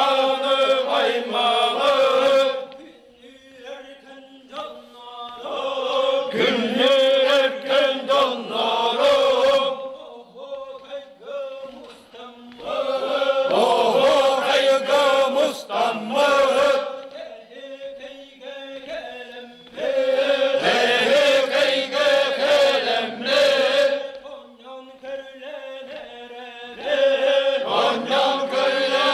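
Sakha osuokhai round-dance song: a chorus of men chanting each line in unison, answering a quieter lead voice. The loud chorus passages come back about every six to seven seconds.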